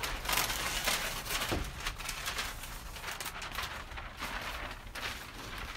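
Large sheets of chart paper rustling and crinkling as a written page is lifted and folded back over the top of the board; loudest in the first two seconds, then softer, scattered rustling.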